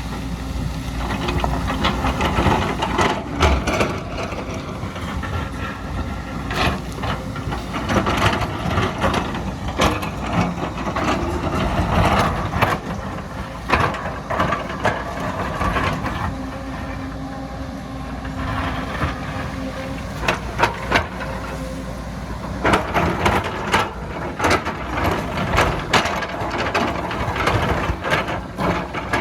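Excavator diesel engine running under load, with frequent knocks and crunches from the bucket digging into soil and rock.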